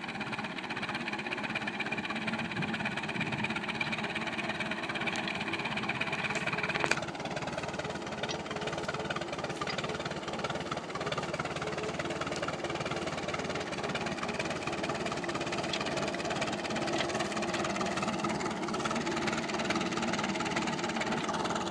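Farmall F-20 tractor's four-cylinder engine running steadily. About seven seconds in there is a sharp click, and a steady high tone heard until then stops.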